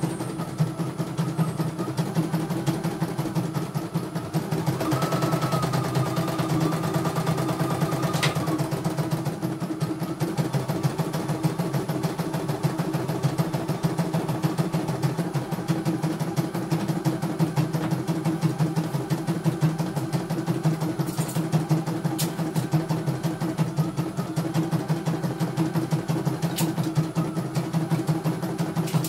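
CNY E900 computerized embroidery machine stitching a design: its needle runs in a rapid, steady rhythm over an even motor hum.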